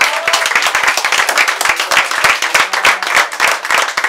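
A group of people applauding, many hands clapping at once.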